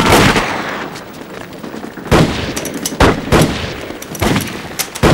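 Battle gunfire: a quick run of shots at the start, then about five single shots spaced irregularly, half a second to a second apart.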